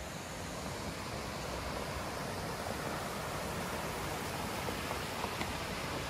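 Steady rush of flowing water from a stream and waterfall, growing slightly louder.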